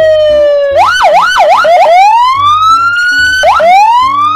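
Loud police car electronic siren. It starts as a slow falling wail, changes about a second in to three quick up-and-down yelps, then runs into two long rising sweeps.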